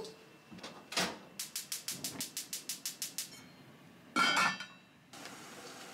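Enamel pot knocked down onto a gas hob's grate, then the hob's igniter clicking rapidly, about seven clicks a second for two seconds. About four seconds in the enamel lid clinks onto the pot, and a steady gas-burner hiss follows.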